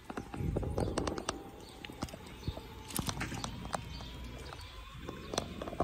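Outdoor park sound: irregular clicks and taps over a low wind rumble on the microphone that eases after the first second or so, with faint bird chirps.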